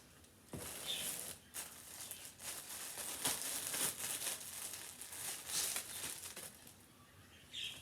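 Packaging and clothing crinkling and rustling as items are handled and pulled from the box, in irregular bursts.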